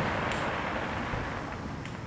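Aerial fireworks display: the echoing rumble of shell bursts dying away slowly between reports, with a couple of faint crackles.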